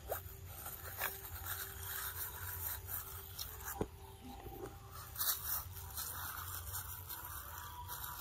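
Scattered small crunches, clicks and scrapes as young macaques bite and handle a cucumber, over a low steady background hum.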